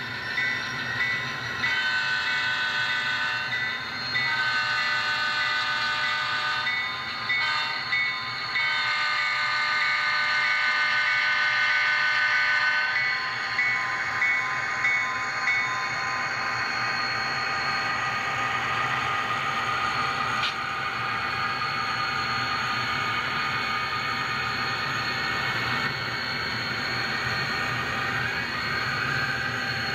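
HO-scale Athearn GP39-2's Soundtraxx Tsunami sound decoder sounding an EMD diesel air horn in a series of long blasts with a short one, the grade-crossing pattern, over a rapidly ringing bell. The horn and bell stop in the first half. The decoder's diesel engine sound and the rumble of model freight cars rolling on the track run on.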